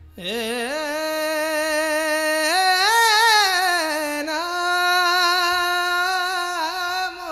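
A single voice singing one long, unaccompanied Marathi kirtan phrase. It holds and ornaments its notes with quick wavering turns in the middle and slides down in pitch near the end.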